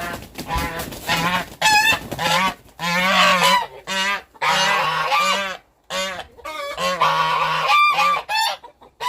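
Domestic goose honking over and over, loud harsh calls coming in quick clusters with short breaks, a protest at being held while a ring is fitted on its leg.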